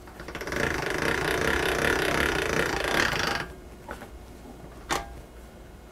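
Hand-cranked pasta machine's steel rollers and gears turning with a rapid clicking as a sheet of dough is fed through, for about three seconds. A single sharp knock follows about a second and a half later.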